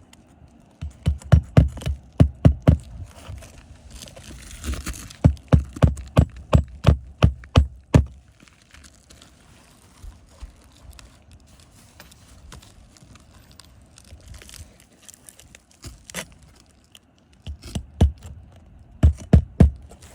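Repeated dull thumps in quick runs of about three a second: one run about a second in, a longer one from about five to eight seconds in, and another near the end, with a few single knocks between.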